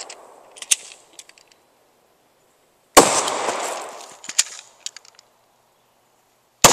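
Two single pistol shots from a Glock fed by a Beta C double-drum magazine, about three and a half seconds apart, each a sharp crack followed by a long echo and a few light clicks and rattles. The sound drops to dead silence between them where the footage is cut.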